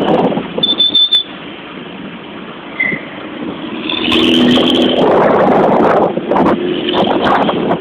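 Bus engine and exhaust running loud and close, growing louder from about four seconds in.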